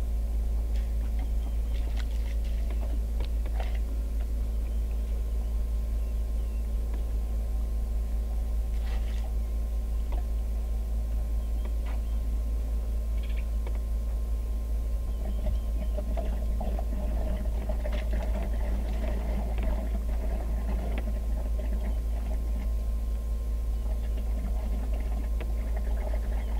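Vehicle engine idling: a steady low rumble with an even hum, with a few faint, brief high-pitched chirps or ticks scattered over it.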